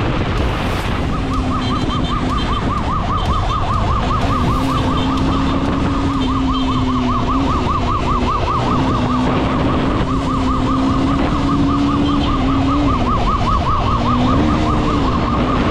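Police motorcycle's electronic siren in a fast, steady warble. Under it run the motorcycle's engine, rising in pitch briefly near the end, and the rush of wind and road noise.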